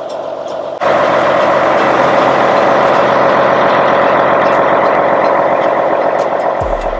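Semi truck's diesel engine running, jumping suddenly much louder about a second in and holding a loud steady note for several seconds. A bass beat of music comes in near the end.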